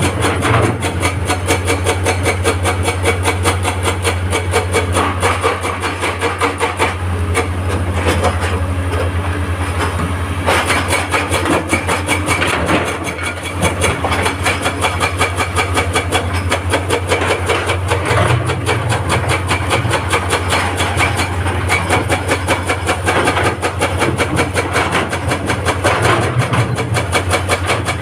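Heavy excavator diesel engine running steadily under load, with a rapid, continuous metallic clatter of machine work on rock.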